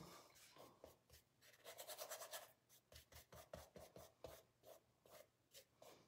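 Faint, short scratchy strokes of a paintbrush working paint, blending in white and brushing it on.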